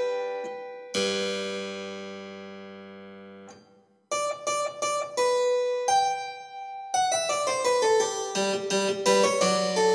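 Solo keyboard music: a chord struck and left to fade for a couple of seconds, a short break about four seconds in, then single notes that turn into fast runs from about seven seconds.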